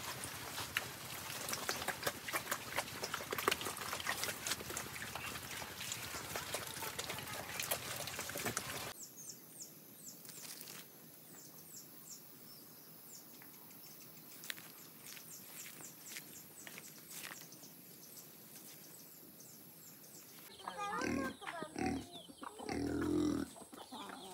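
A pig eating wet slop from a trough: a dense run of smacking and slurping that stops abruptly about nine seconds in. Then it is quieter, with faint high chirps, and a few short, louder calls near the end.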